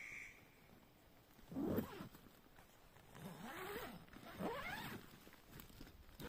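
Dog whining: three calls that rise and fall in pitch, the first about two seconds in the loudest.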